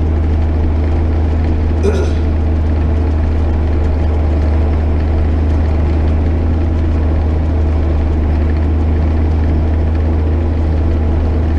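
JCB Fastrac 8250 tractor's diesel engine running steadily under load while pulling a plough, a constant deep drone, with a brief click about two seconds in.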